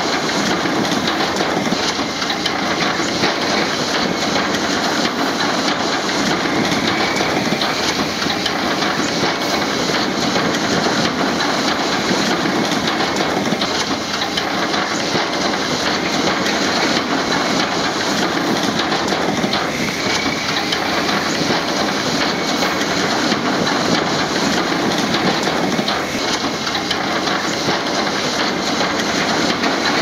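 Diesel engine of heavy earthmoving machinery running steadily, a dense, even noise without breaks or pauses.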